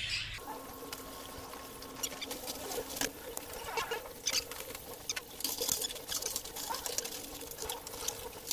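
Scattered light clicks and scratching in a budgie room, with a few faint budgie chirps, over a steady low hum.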